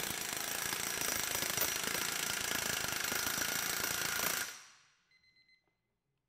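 Capri Twin Power CP35205 half-inch pneumatic impact wrench hammering under load on a torque tester, a rapid continuous rattle that stops about four and a half seconds in.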